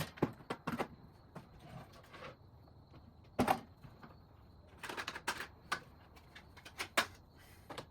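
Irregular knocks, clunks and clatters of hard objects being handled and set down, as items are moved out of the way in a garage. The sharpest knocks come about halfway through and near the end, with a quick run of clatters between them.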